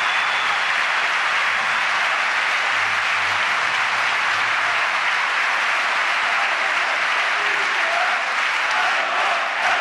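A large indoor audience applauding steadily in a sustained ovation, with a few voices rising through the clapping near the end.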